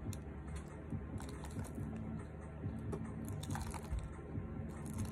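Faint, irregular crunching and clicking as hands handle a small potted plant, fingers working at the soil and leaves in a small black nursery pot.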